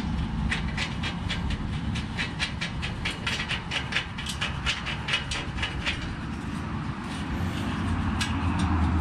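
Rapid, even metallic clicking, several clicks a second, as a bolt is screwed by hand into a spring nut inside steel Unistrut channel. The clicking fades out about six seconds in, and a low rumble rises near the end.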